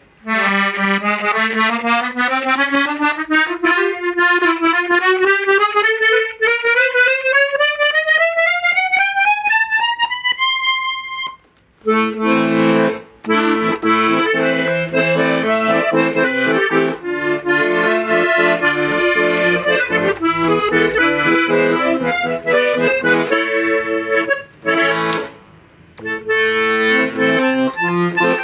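Fröhlich Bambi accordion being played. A single-note scale climbs steadily for about eleven seconds. After a short break come chords and a melody, with a couple of brief pauses near the end.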